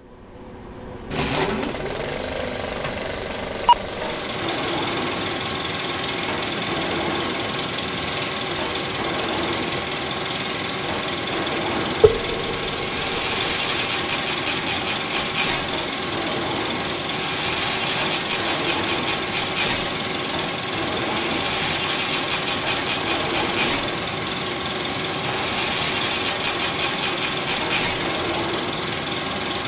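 Continuous mechanical clattering that starts about a second in and swells into rapid rattling bursts about every four seconds. A sharp click sounds about four seconds in and another at about twelve seconds.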